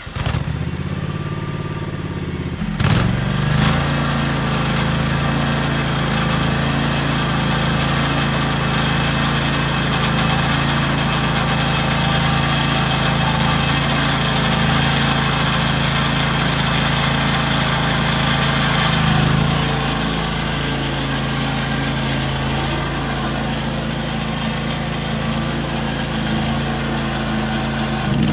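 2003 John Deere X485 garden tractor's 25-horsepower liquid-cooled, fuel-injected Kawasaki V-twin engine, just started and running steadily. Its note rises about three seconds in, with a couple of short bumps.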